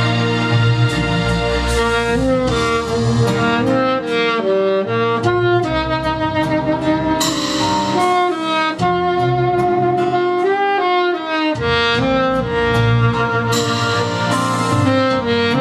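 Instrumental music: a lead instrument carries a slow melody of held, stepping notes over a backing track with bass, and cymbal-like swells twice.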